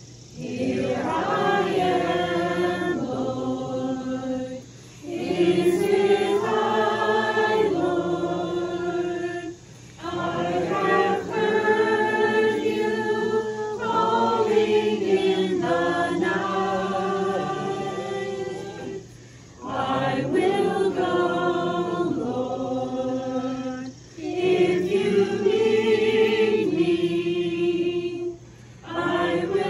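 Church congregation singing a hymn together in long phrases, with short breaks for breath between lines.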